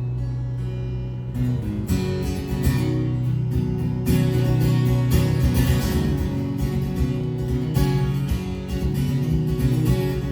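Guitar strumming a song's intro: one chord held and ringing for about the first second and a half, then steady rhythmic strumming.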